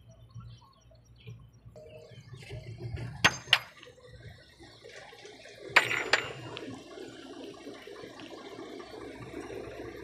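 Two pairs of sharp metal clanks on the steel tailgate of a loaded dump truck, about three seconds in and again about six seconds in, as the tailgate latch is worked. The truck's diesel engine runs low underneath.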